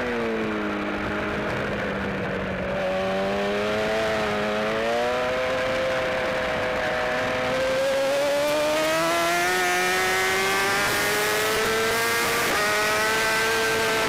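BMW S1000RR race bike's inline-four engine, heard from the onboard camera: the revs fall as the bike slows into a corner, hold low for a few seconds, then climb steadily on the throttle out of the corner, with an upshift near the end and the revs rising again. Wind rush grows as the speed builds.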